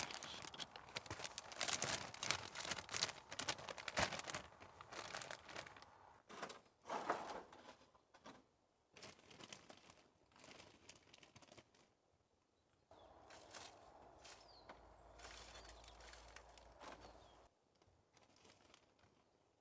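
Crinkling and rustling with many quick clicks and crackles, as of something being handled, busiest in the first eight seconds and thinning out after. A softer, steadier rustle with a low hum runs from about thirteen to seventeen seconds in, then stops.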